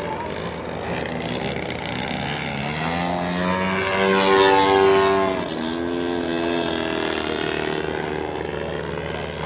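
Radio-controlled model airplane's engine and propeller buzzing through a low pass. The note grows louder and higher as the plane comes in, is loudest about four to five seconds in, then drops suddenly in pitch as it goes by and fades away.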